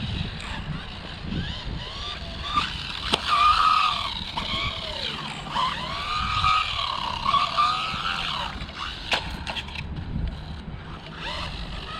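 Rlaarlo AMX12 electric RC buggy driving, its motor whine rising and falling again and again with the throttle. There are a couple of sharp clicks, about three seconds in and about nine seconds in.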